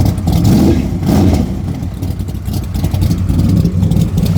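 A 406 small-block Chevy V8 running through side pipes fitted with Cherry Bomb muffler inserts. It swells twice in the first second and a half, like short throttle blips, then runs steadily. The exhaust is a little loud.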